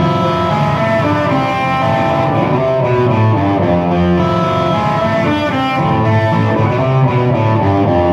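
Rock music without vocals: a distorted, effects-laden electric guitar playing over a full band.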